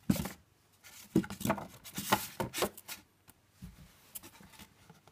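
Handling noises of a card certificate folder being opened and pressed flat: a sharp tap, then about two seconds of quick scrapes and rustles of card, dying away after that.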